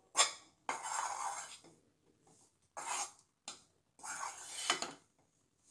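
A utensil scraping and pressing the crumbly fried-gram palkova against a stainless steel tray, in several short scrapes with pauses between.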